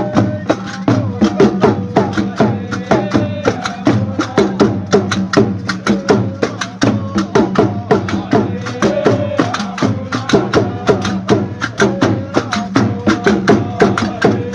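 Iron qarqabu (double castanets) clacking in a fast, even rhythm, played by several men together, with men's voices singing over them.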